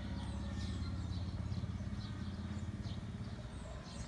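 A low, steady engine rumble with fine, even pulsing, with many short, high bird chirps over it.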